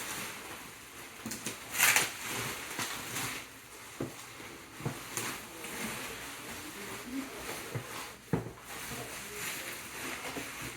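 Bubble wrap being handled and unrolled from a packed model-plane fuselage: an irregular run of plastic rustling and crinkling with a few sharper clicks, loudest about two seconds in.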